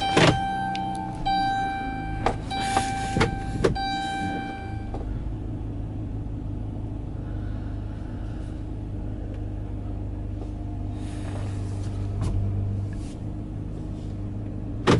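A car, heard from inside. For the first five seconds a steady electronic tone sounds, broken by several sharp clicks; after that the engine and road make a steady low rumble.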